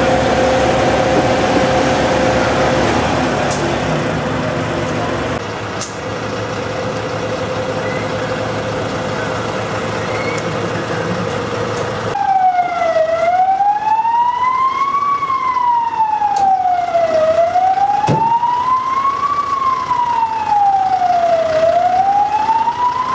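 For the first half an engine runs steadily with a constant hum. It then gives way abruptly to an emergency-vehicle siren wailing, its pitch rising and falling slowly, about once every four seconds.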